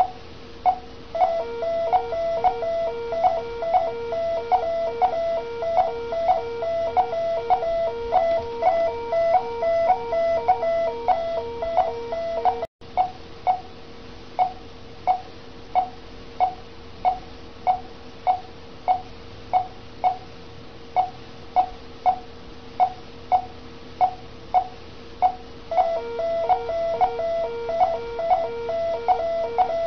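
Patient monitor beeping in time with the heartbeat, a little under two short beeps a second. A lower repeating alarm tone sounds alongside it for the first half and again near the end.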